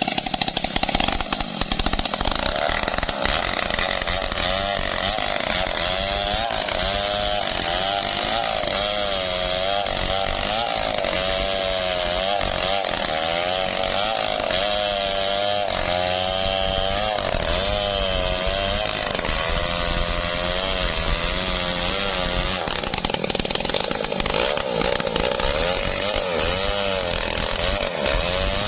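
Stihl 070 big two-stroke chainsaw running hard and steadily for the whole stretch, its engine pitch wavering up and down as the chain cuts through teak.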